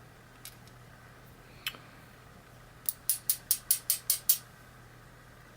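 Light metallic clicks from the parts of a pin tumbler challenge lock being handled as it is taken apart: two single clicks, then a quick run of about eight clicks over a second and a half.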